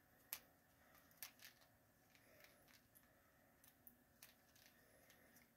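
Near silence, broken by a handful of faint, brief clicks from a small candy package being handled in the hands.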